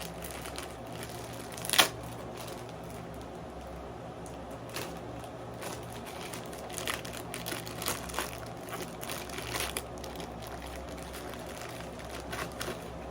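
Crinkling and rustling of packaging and a cloth bandolier being handled, in scattered short bursts, with one sharper click about two seconds in and a busier run of rustles later on.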